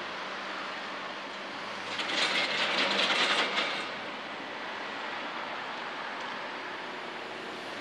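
Steady engine and city traffic noise from a small blade tractor working the drained canal bed. About two seconds in, a loud rattling clatter lasts under two seconds, then stops.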